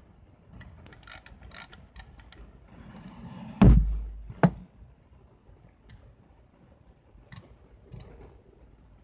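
Olympus Pen EE-3 film camera being handled: small mechanical clicks from its controls, a loud thump about three and a half seconds in, then a sharp click just after and a few faint clicks.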